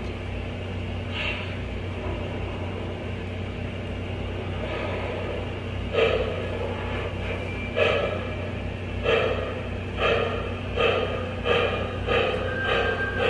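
O-scale Lionel Vision Line Challenger steam locomotive's onboard sound system over a steady low hum: a short hiss about a second in, then steam chuffs that begin about six seconds in and come faster and faster as the locomotive starts to move.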